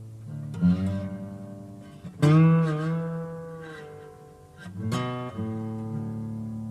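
Acoustic guitar music: notes or chords struck three times and left to ring out, the loudest one bending slightly in pitch as it rings.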